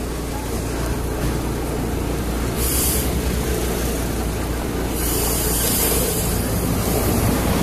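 On-board running noise of a Lisbon Remodelado tram moving along street track: a steady low rumble of wheels on rails, with two short bursts of hiss, about three seconds in and again around five to six seconds in.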